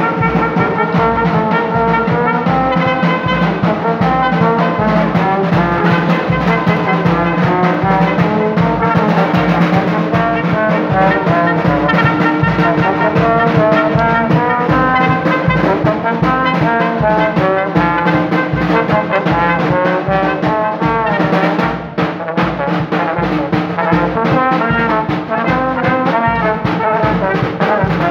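Small street brass band of trumpet and trombone with bass drum and snare drum playing a tune, the bass drum keeping a steady beat under the horn melody.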